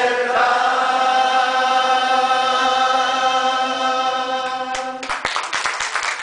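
A man's voice, amplified through a microphone, holds one long steady note on "la" with the audience singing along. About five seconds in the note stops and the audience breaks into applause.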